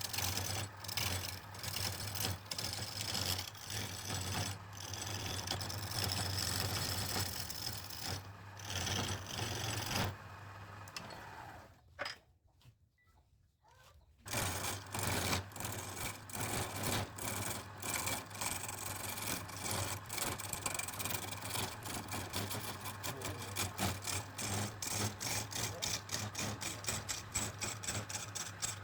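Electric wood lathe running with a steady low hum while a tool works the spinning wood, giving rapid, even ticking that gets denser in the second half. The sound drops out almost entirely for about two seconds near the middle.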